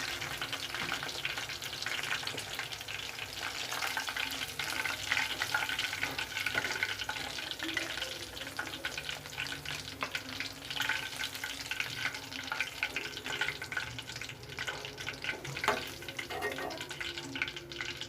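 Chicken pakodi deep-frying in hot oil: a dense, steady sizzling crackle, the pieces fried well and ready to come out.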